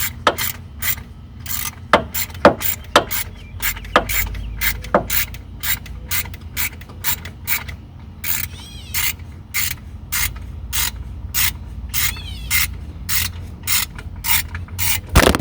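Ratchet wrench with an 11 mm socket and extension clicking steadily, about three clicks a second, as a fitting on supercharger piping is tightened. The sound cuts off suddenly near the end.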